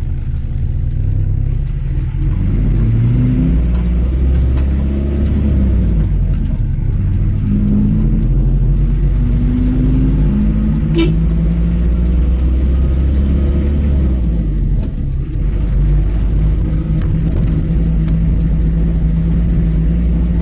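A road vehicle driving with a steady low rumble, its engine note rising and falling several times as it speeds up and slows down. A short sharp click about eleven seconds in.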